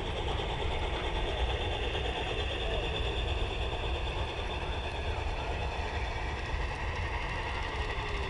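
LGB G-scale model trains running along the track, a steady whirring of small electric motors and wheels, over a steady low rumble.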